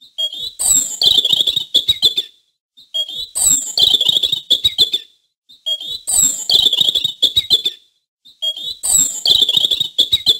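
European robin vocalizing: the same short high-pitched phrase repeated four times, about every three seconds.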